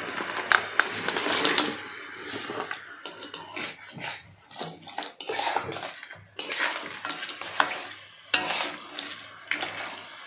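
Small crabs tipped into a wok and stirred with a metal spatula. Their shells and the spatula clatter, knock and scrape irregularly against the pan.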